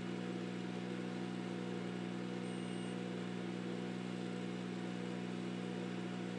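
Ventrac 4520Z compact tractor's diesel engine running steadily at a constant speed, with no load changes.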